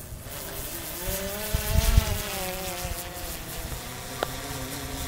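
Quadcopter drone (DJI Mavic 3 Classic) flying, its propellers giving a steady buzzing whine whose pitch rises and falls as it manoeuvres. Gusts of wind rumble on the microphone underneath.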